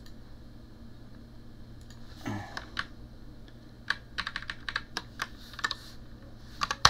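Typing on a computer keyboard: a quick run of key clicks starts about four seconds in, after a quieter stretch with only a low steady hum. One sharper click comes right at the end.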